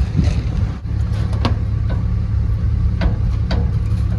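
A vehicle engine idling with a steady low rumble, with a few short sharp clicks or knocks over it.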